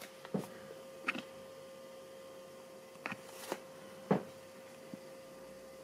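Quiet room tone with a faint steady hum, broken by a few soft clicks and taps, the loudest about four seconds in.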